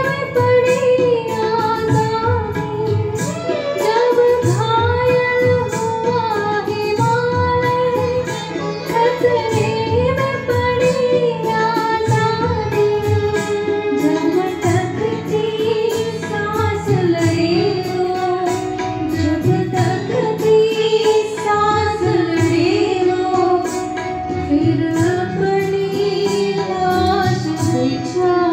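A group of singers, women's voices prominent, singing an Indian melody in unison, accompanied by sitar, violin and tabla.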